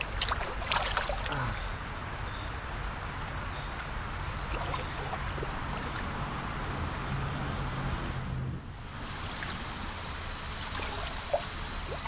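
Creek water splashing, a few sharp splashes in the first second or so, as a hooked rock bass thrashes at the surface and is played in, over the steady wash of shallow running water.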